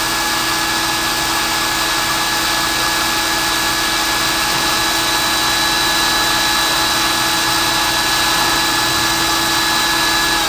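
Water quench spraying onto a freshly induction-heated steel cross member as it turns inside the copper coil: a loud, steady hiss of spray, with a steady machine whine under it. This is the quench stage that hardens the heated surface.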